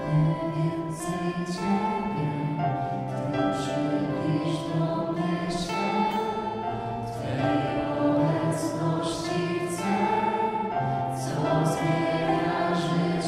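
Music: a choir singing long held chords.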